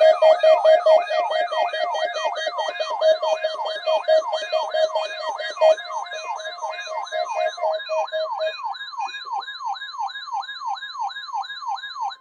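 Electronic siren in quick falling sweeps, about three a second, over a steady pulsing lower tone that stops about two-thirds of the way through. A steady higher tone joins the sweeps in the later part, and it all cuts off suddenly at the end.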